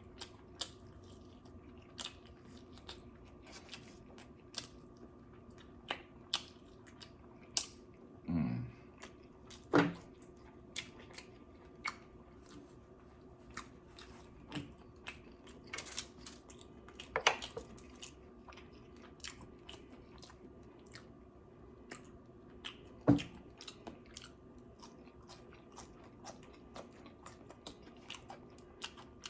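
Close-miked eating: chewing and biting with many short, wet mouth clicks and an occasional crunch, and a few louder mouth sounds scattered through.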